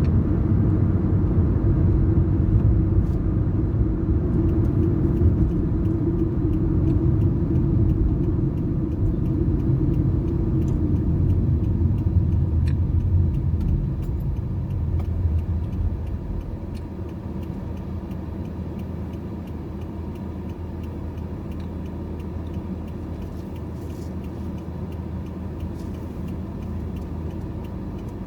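Car driving, with a steady low rumble of road and engine noise that drops to a quieter level about halfway through.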